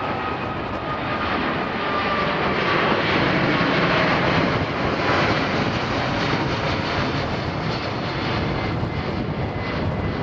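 Airbus A380 jet airliner flying low overhead, the noise of its four jet engines swelling to its loudest about four seconds in, with a faint whine that drops slightly in pitch early on, then easing off a little as it banks away.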